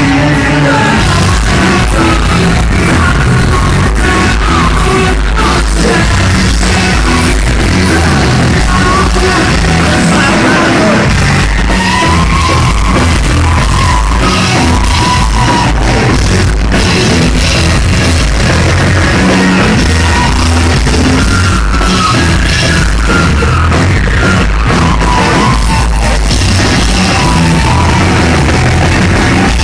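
Live rock band playing loud amplified music with a singer's voice over it, in an audience recording that sounds harsh and overloaded.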